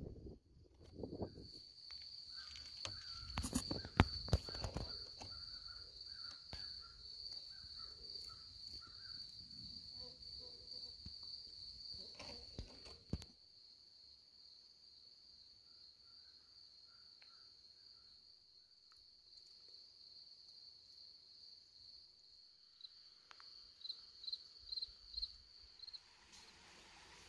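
A steady, high-pitched insect drone, pulsing slightly, with knocks and rustling close to the microphone and a few short repeated bird calls over the first half. The knocks and rustle stop suddenly about halfway through, leaving the insects alone, and near the end the drone breaks into separate chirps.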